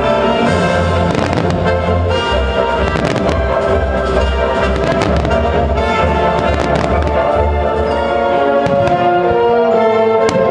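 Aerial firework shells bursting in quick succession with low booms and crackle, over orchestral music with held brass-like tones; the bursts thin out near the end.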